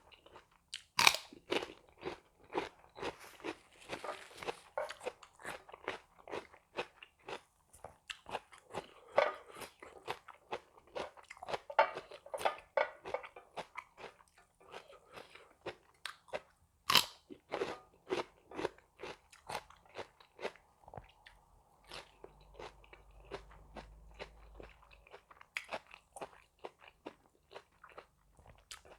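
A person eating crunchy food, with irregular crisp crunches and chewing and a few louder bites, one about a second in and another about halfway through.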